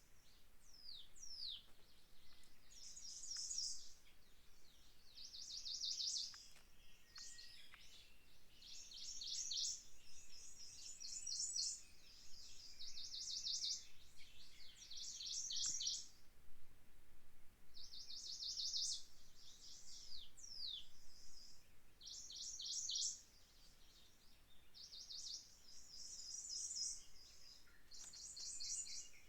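Songbirds singing in a forest: repeated phrases of rapid, high-pitched notes about a second long, coming every couple of seconds, mixed with quick downward-sliding calls.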